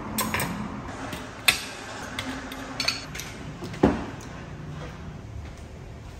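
Several sharp clinks and knocks of hard objects being handled, over a faint steady hum; the loudest come about a second and a half in and just before four seconds in.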